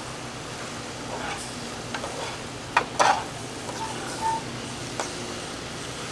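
Onion, mushrooms and shredded carrots sizzling in a frying pan while being stirred, with a few sharp clicks and scrapes of the utensil against the pan around the middle and again later.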